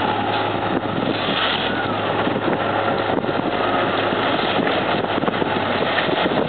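A heavy machine's engine runs steadily with a constant low hum, while the hull of a 36-foot Trojan boat cracks and crackles as it is crushed.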